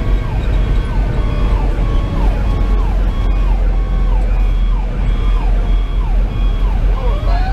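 A Federal Q2B mechanical siren winding slowly down, then spinning back up near the end, mixed with an electronic siren making quick falling sweeps about twice a second. Underneath is the steady rumble of the Pierce fire engine's diesel and the road, heard from inside the cab.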